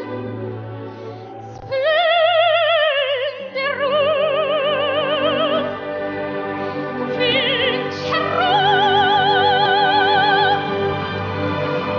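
A 13-year-old girl singing opera in a full, classically trained voice with wide vibrato, holding long sustained notes over an accompaniment track. About eight seconds in she swoops up into a high held note.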